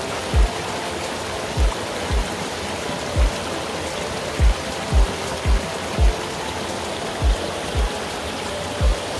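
Steady rushing of a mountain-valley stream under background music. The music has a deep kick-drum beat that lands about every half second in an uneven pattern, sometimes in pairs, over soft held tones.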